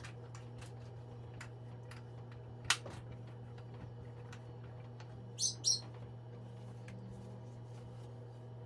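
A pet bird gives two short, high chirps in quick succession over a steady low hum. A single sharp click comes a few seconds before them, with a few faint ticks scattered around.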